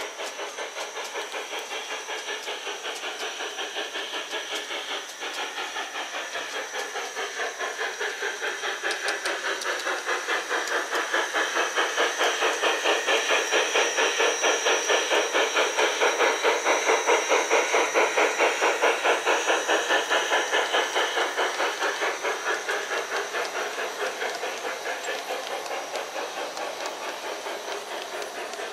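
LGB model steam locomotive chuffing at a fast, even beat of about three chuffs a second, over a steady hiss. It grows louder as the train approaches, is loudest about two-thirds of the way through, then fades as the coaches pass.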